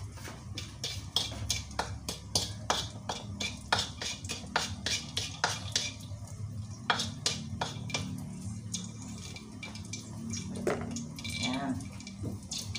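Spatula scraping and tapping against a wok while stirring peppercorns and bay leaves in oil: many quick clicks and scrapes for the first half or so, thinning out later. A steady low hum runs underneath.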